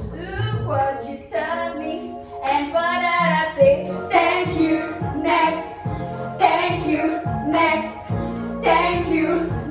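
Background pop song with a woman singing.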